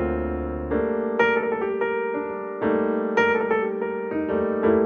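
Background piano music: a melody of single notes, two or three a second, over sustained chords.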